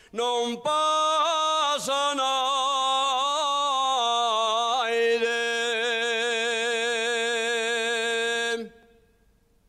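A man singing an Asturian tonada unaccompanied: one long, heavily ornamented phrase on a single vowel, full of quick trills and turns. The phrase stops about a second before the end.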